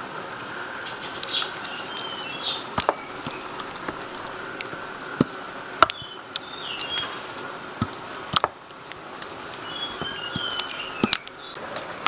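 Small birds chirping in short, falling calls, with a faint steady whine beneath. A few sharp knocks, the loudest sounds, come from a utensil striking a steel mixing bowl as mashed pumpkin and coconut milk are stirred.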